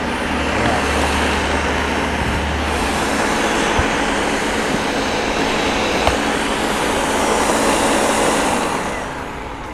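Countertop blender running steadily, grinding coconut with water into coconut milk; the motor noise fades away near the end.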